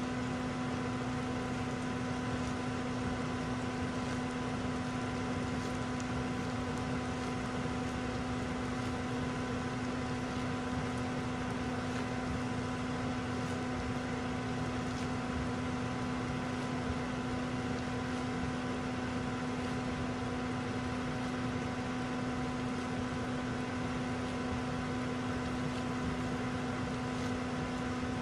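Steady mechanical hum of a parked Toyota Yaris running at idle, one constant tone over a low even noise.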